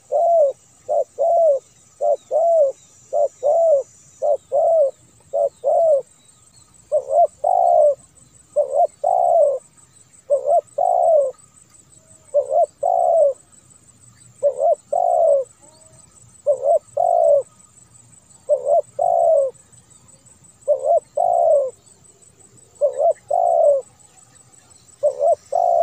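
Spotted dove cooing over and over. The notes come quickly in pairs for the first few seconds, then settle into two- and three-note phrases about every two seconds.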